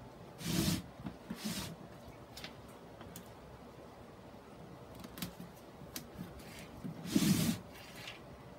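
Handling noise from working a sphagnum moss mound and a plastic grid mounting board with gloved hands: short rustling, scraping bursts about half a second and a second and a half in, and again a little after seven seconds, with scattered light clicks between them.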